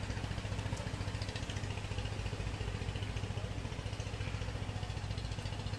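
Car engine idling, heard from inside the cabin: a steady low hum with a quick, even pulse.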